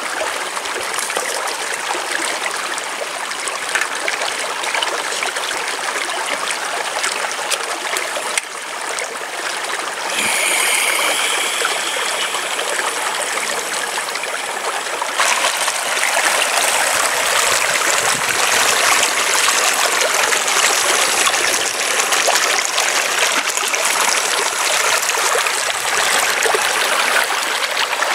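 Shallow mountain stream running over rocks, a steady rushing trickle that gets louder about halfway through.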